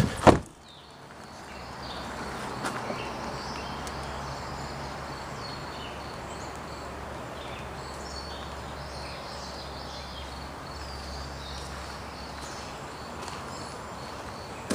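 A sharp thump of the camera being handled near the start. Then steady outdoor background: an even hiss with a low hum and faint, high insect chirping.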